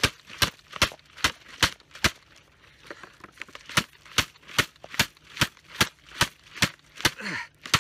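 A water bottle repeatedly smacked against a rifle-mounted laser sight as an abuse test of the laser and its mount. The sharp blows come in a steady beat of about two to three a second, weaker for a moment about three seconds in.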